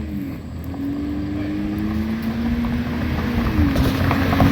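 A motor vehicle's engine drones with a steady low hum, growing louder toward the end as a rushing hiss rises.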